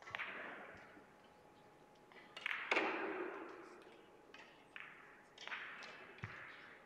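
Russian billiard balls knocking, several sharp knocks each with a ringing echo through the hall. The loudest comes about two and a half seconds in, and smaller knocks follow near the end.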